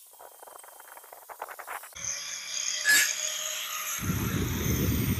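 Angle grinder with a 60-grit flap wheel grinding mill scale off steel plate: a steady high whirring that starts suddenly about two seconds in. A sharp knock comes about a second later, and a low rumble near the end.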